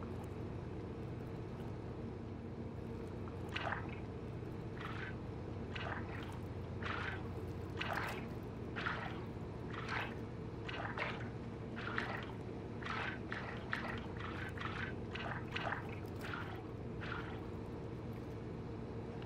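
Underwater ambience: a steady low drone with a string of short bubbling water sounds, about one or two a second, starting a few seconds in and dying away near the end.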